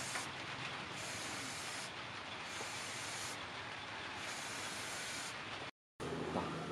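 Aerosol spray-paint can hissing in about four bursts of roughly a second each, spraying black paint onto the forged steel axe head.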